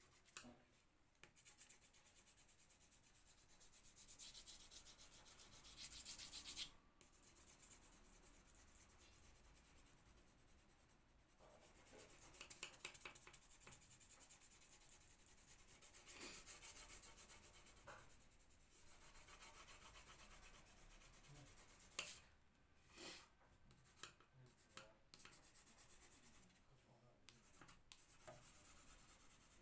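Colour pencil rubbing on paper in quick, fine back-and-forth strokes as a drawing is coloured in, faint, stopping briefly now and then.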